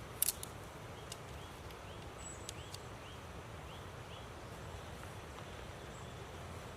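Steady low rush of a river, with a sharp click just after the start and a series of short rising chirps from a small animal, about two a second, for a few seconds in the middle.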